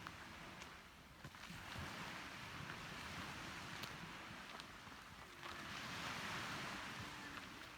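Wind and sea water: a steady rushing noise that swells and eases every few seconds, with a few faint clicks.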